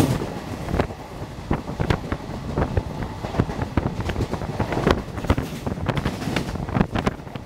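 Express passenger train running past at speed: a continuous rush of rolling wheels and air with many irregular sharp clacks as wheels cross rail joints, and wind buffeting the microphone.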